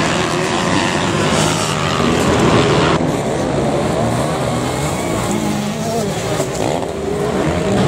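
Motocross bike engines revving up and down on the track, the pitch rising and falling as riders work the throttle. The sound changes abruptly about three seconds in, at an edit.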